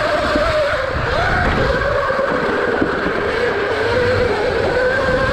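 Electric dirt bike's motor whining, its pitch dipping and rising as the rider works the throttle over the track, with a rough wind rumble on the microphone underneath.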